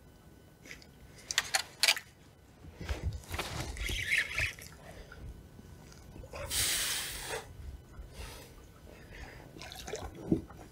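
Fishing tackle handled from a kayak while a fish is hooked on a jig: a few sharp clicks of the rod and reel about a second and a half in, scattered knocks and rustling, and a short hiss of noise a little past the middle.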